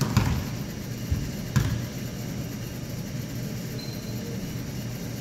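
A basketball bouncing on a hardwood gym floor: three thumps in the first two seconds, echoing in the large hall, then only a steady low rumble.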